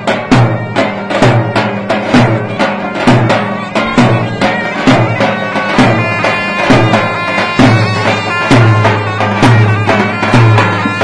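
Davul bass drum and zurna playing loud folk dance music. The shrill reed melody runs on over a steady, repeating pattern of drum beats.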